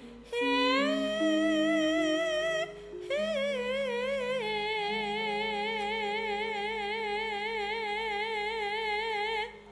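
A sinden (Javanese female singer) singing long held notes with heavy vibrato into a microphone, over low sustained accompanying notes. She breaks off briefly about three seconds in, then holds one long wavering note for about five seconds.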